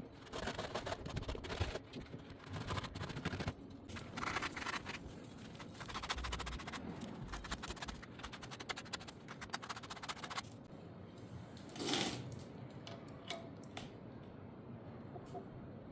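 Small metal parts and hand tools being handled: rapid clicks, taps and scrapes for the first ten seconds or so, then a single louder rustling scrape about twelve seconds in.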